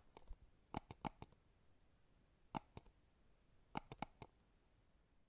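Faint, scattered clicks and taps, about a dozen short ones in small clusters, over near silence.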